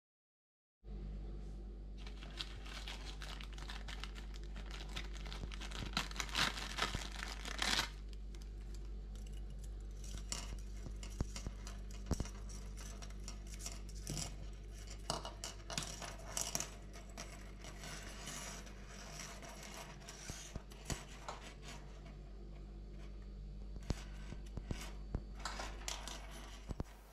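A braided wire pocket saw being uncoiled and handled on a wooden table: scattered clicks, scrapes and rustles as the wire and its plastic ring handles move, over a steady low hum.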